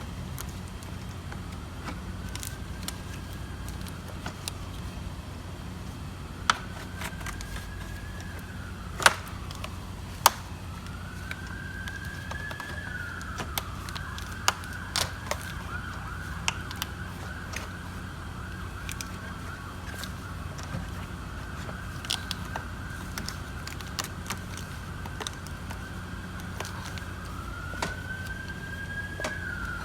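Emergency-vehicle siren wailing, rising and falling several times and holding one long steady tone in the middle, over a steady low hum. Scattered sharp clicks and knocks of parts being handled as the condenser fan assembly is slid into place.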